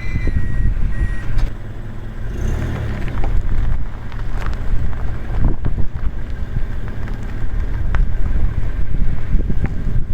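Toyota HiAce van running with a steady low rumble of road and drive noise and scattered knocks; a brief high-pitched disc-brake squeal dies away about a second in. The squeal is one the shop put down to a stone or a clump of brake dust caught in the brake.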